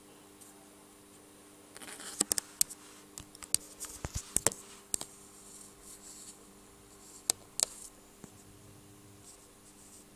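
Handling noise from a phone held against an aquarium: a cluster of sharp clicks and scratches from about two to five seconds in, then two more clicks a little past seven seconds. Under them runs a faint steady low hum.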